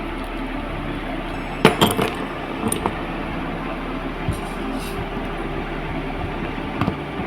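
Small metal parts of a sliding-door hanging wheel clinking and clicking as they are handled and fitted together, with a cluster of clinks a little under two seconds in and a few lighter taps later, over steady background noise.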